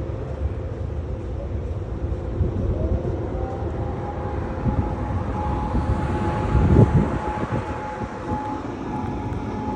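Steady low industrial rumble with a vehicle passing close by, loudest about seven seconds in. A faint steady high tone comes in about three and a half seconds in and holds.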